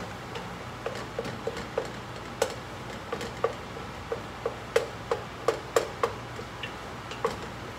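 Wooden spoon knocking and scraping against the side of a cooking pot while ground turkey is stirred: a string of light, irregular knocks, about three a second.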